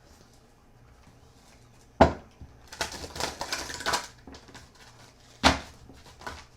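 Oversized oracle cards being shuffled by hand: a sharp slap about two seconds in, then a stretch of rustling and clacking cards, then another sharp slap.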